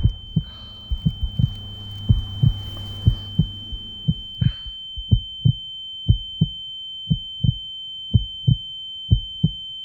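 Heartbeat sound effect: low double thumps, quick and uneven over the first four seconds or so, then settling to a steady beat about once a second. Under it runs a steady high-pitched ringing tone.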